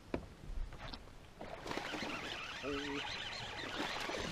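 Water splashing and churning at the surface as a largemouth bass takes a topwater frog lure and thrashes on the line. It starts suddenly about a second and a half in and continues.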